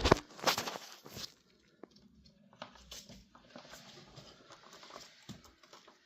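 Handling noise from the motorcycle chain and riveting tool: a few sharp clicks and knocks in the first second or so, then faint scattered ticks.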